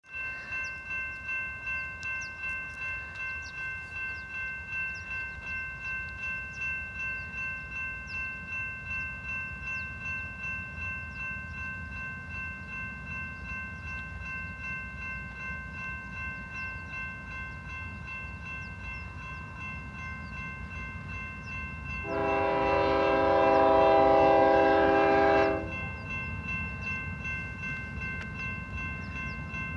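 Grade-crossing bell ringing steadily at a little over one stroke a second over a low rumble. About 22 seconds in, a Union Pacific GE diesel locomotive's air horn sounds one long blast of about three and a half seconds, the loudest sound here.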